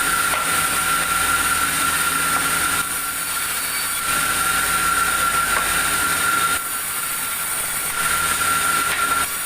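Sawmill saw running with a steady high-pitched whine over a loud hiss, stepping up and down in level a few times as it works through the timber.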